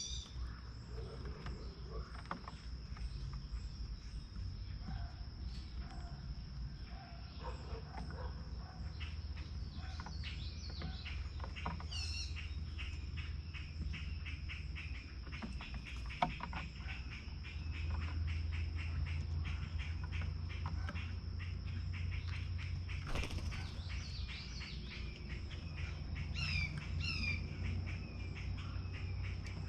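Songbirds at a feeder chirping and calling over a steady high insect drone: scattered short chirps, a fast run of repeated notes through the middle, and a few downward-sliding calls, with a low rumble underneath.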